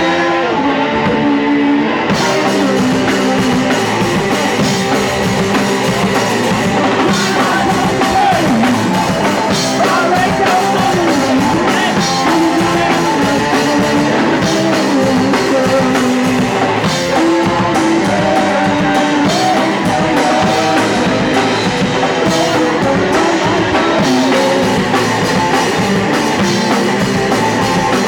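Punk rock band playing live, loud and without a break: electric guitar and drum kit.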